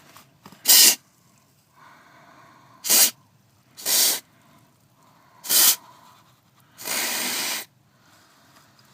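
Aerosol can of white lithium grease sprayed in five short hissing bursts, the last one longer, lubricating the steering column to cure a rubbing steering wheel.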